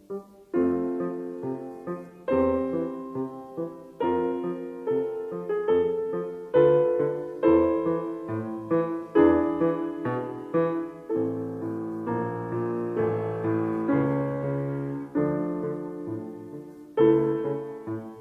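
Background piano music: struck chords and notes in a steady, unhurried rhythm.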